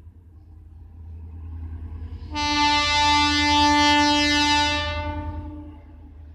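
An Indian Railways ICF DEMU train sounds its horn in one long blast of about three seconds. The blast starts suddenly a couple of seconds in and fades away, over a steady low rumble from the approaching train.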